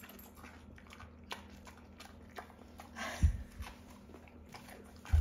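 A dog chewing and crunching a piece of raw broccoli off a plate, a run of short crunchy clicks, with a dull thump about three seconds in and another near the end.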